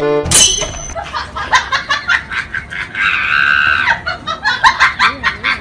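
Human laughter in quick, repeated bursts, with one higher, held laugh about three seconds in.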